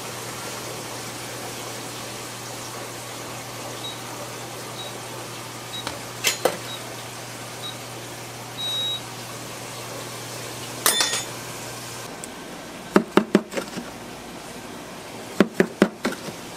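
Kitchen appliance hum with a few short, high electronic beeps and a couple of clatters. After that, two quick runs of sharp knocks as a plastic scraper works shaved milk ice off a stainless bingsu machine tray into a bowl.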